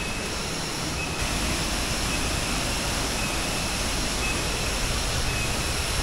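Aling-Aling, a 35-metre twin waterfall, rushing steadily, a little louder from about a second in. A faint high note sounds briefly now and then over the water.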